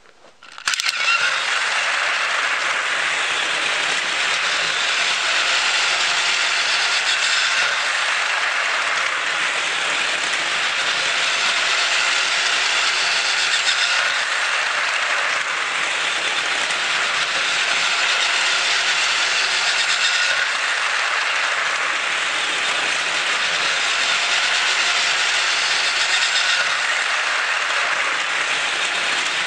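Plarail toy E6 shinkansen train fitted with a high-speed Ultra Dash motor, switched on about a second in and running on plastic track: a loud high whir with its wheels rattling on the plastic rails, swelling and fading every six seconds or so.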